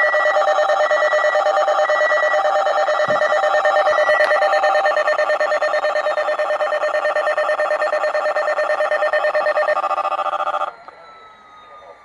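Weather radio alert tone for a watch activation: a loud, steady alarm tone with a fast warble, cutting off abruptly about eleven seconds in.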